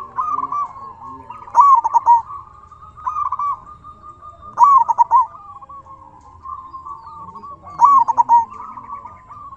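Zebra dove (perkutut) cooing: about five loud, short, bubbling coo phrases a second or two apart, with fainter cooing between them.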